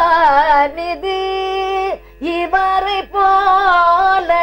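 A woman singing a Tamil devotional song in Carnatic style. Ornamented, wavering phrases alternate with long held notes, with a short break for breath about two seconds in.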